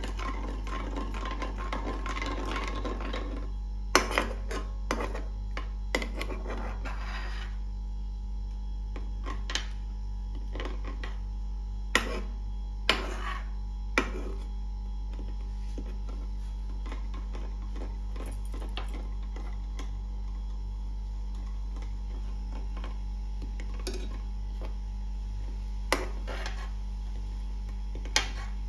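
A metal spoon stirring and scraping in a nonstick kadai of milk, working hardened caramel until it melts. Sharp clinks come now and then as the spoon knocks the pan, with denser scraping in the first few seconds, all over a steady low hum.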